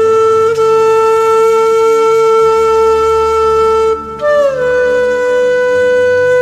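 Background music: a wind instrument playing long held notes. One note holds for about four seconds, then after a brief break a higher note slides into place and holds.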